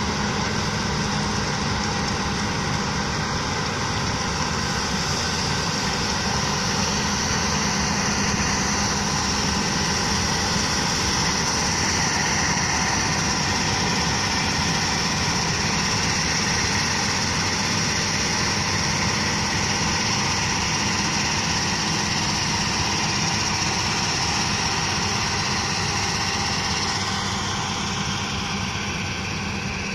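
Claas Lexion combine harvester running while it cuts grain: a steady engine and threshing drone that eases a little near the end as the machine moves away.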